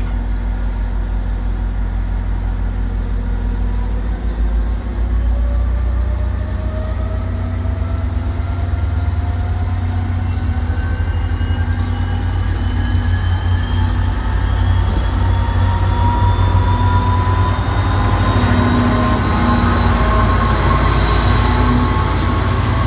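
New Jersey Transit commuter train rolling past slowly, its cars and diesel locomotive making a steady low rumble. From about six seconds in, a whine rises slowly and steadily in pitch, and the locomotive's rumble comes close near the end.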